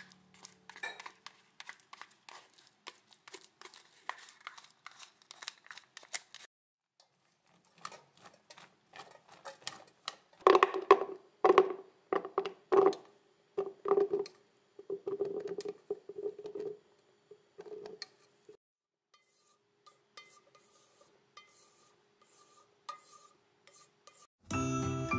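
Kitchen utensil clinking and scraping against a stainless steel pot of boiled soybeans, and soybeans being spooned into a plastic container. It comes as runs of clicks and knocks, loudest and ringing in the middle. Music starts right at the end.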